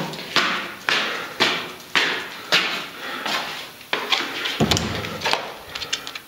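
Footsteps walking at about two steps a second, each a sharp tap with a short scuff after it. A duller, deeper thump comes a little past halfway.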